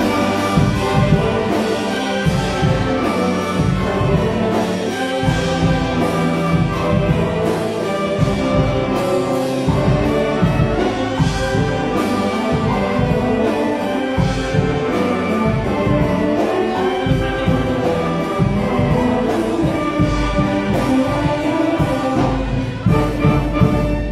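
Youth concert band playing a pop-song medley: brass and woodwinds over a steady drum beat, with the level falling off near the end.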